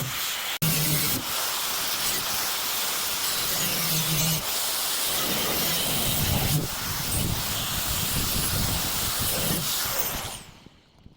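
A power tool running with a loud, steady hiss. It is switched off about ten seconds in and a falling whine follows as it winds down.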